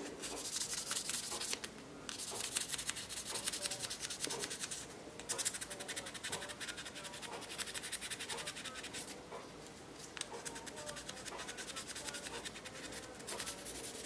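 Used 1200-grit sandpaper rubbed by hand in quick back-and-forth strokes along the steel blade of a Schrade Old Timer 120T folding pocket knife, lightly sanding off surface rust. The scratchy strokes pause briefly about three times.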